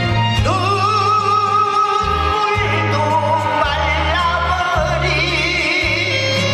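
Live trot song with a band accompaniment: a sung melody that glides up into a long held note with vibrato, then moves on to other held notes over a steady repeating bass line.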